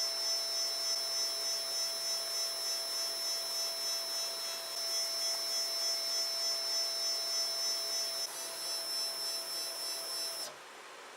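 Protomaker 3D printer's Z-axis stepper motors whining steadily with several fixed high tones as they turn the threaded rods to raise the carriage. The whine cuts off suddenly about ten and a half seconds in, when the move stops.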